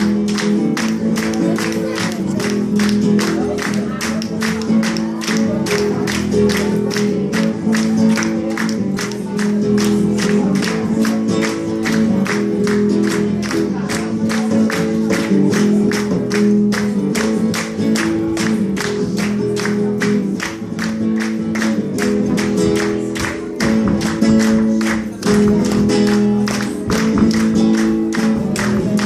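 Live music on a Brazilian viola (viola caipira), played with fast, steady repeated strokes over sustained notes.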